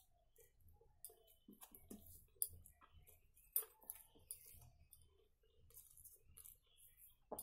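Faint, irregular clicks and wet smacks of someone eating rice by hand: fingers working rice and curry on a steel plate, and chewing. A few sharper clicks stand out about two and a half and three and a half seconds in.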